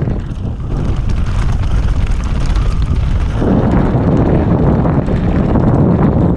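Wind buffeting the microphone of a rider-mounted camera during a fast mountain-bike descent, mixed with the rattle of the bike over rough trail. It eases a little early on and comes back full about three and a half seconds in.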